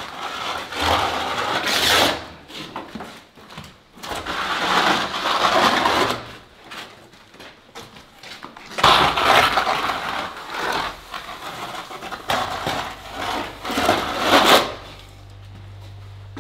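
A straightedge scraped over freshly sprayed, wet plaster in about four long strokes, levelling the sprayed base coat so no bumps remain.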